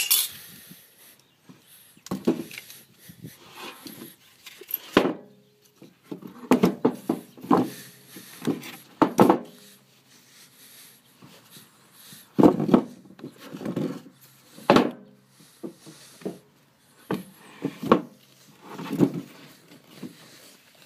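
Heavy buckeye burl billets being turned over one by one, wood knocking and thudding against wood in an irregular string of sudden knocks.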